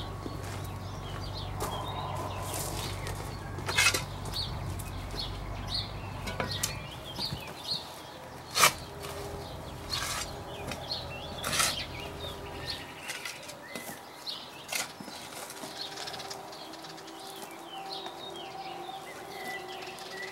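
Spade strikes and scrapes in stony garden soil, a sharp hit every second or two, the loudest sounds here. Small birds chirp and sing throughout, and a low hum underneath drops away about halfway through.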